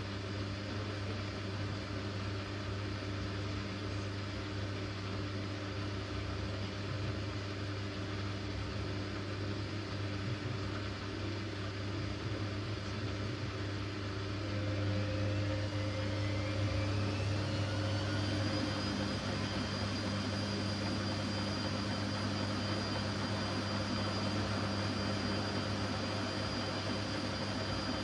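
Siemens iQ washing machine running with a steady motor hum. About halfway through, its whine rises in pitch over a few seconds and then holds at the higher pitch as the drum speeds up.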